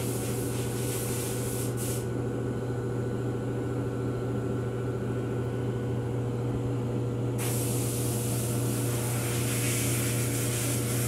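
Steady low mechanical hum with a hiss over it. The hiss cuts out about two seconds in and comes back a little past seven seconds, while the hum goes on unchanged.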